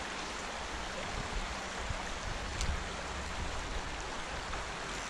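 Shallow stream water running over a stony bed, a steady rush, with gusts of wind rumbling on the microphone. A single sharp click about halfway through.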